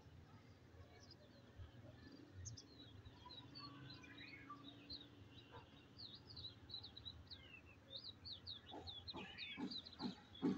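Many small birds chirping faintly: quick high chirps and short downward-slurred notes, overlapping. From about eight seconds in, a few louder, harsher short calls or knocks join them.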